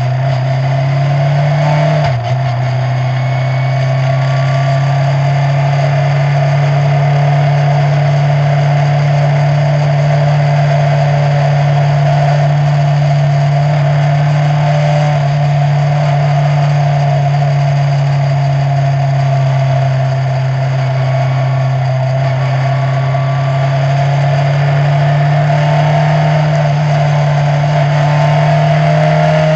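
Onboard sound of a single-seater race car's engine running at near-constant revs under way, heard from the cockpit. A brief dip in the note about two seconds in, then a steady drone whose pitch climbs slightly near the end as the car speeds up.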